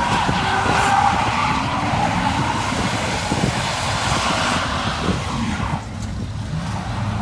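Pickup truck tires squealing in a long, wavering screech as the truck spins donuts, with engine rumble underneath. The squeal fades about six seconds in.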